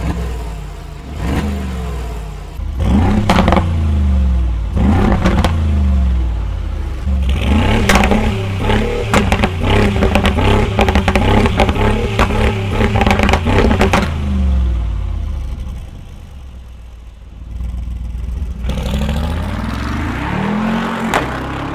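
Mercedes-AMG G63's twin-turbo V8 through an aftermarket sports exhaust, blipped and revved hard several times with rising and falling pitch, popping and crackling on the overrun. Near the end it pulls away, accelerating.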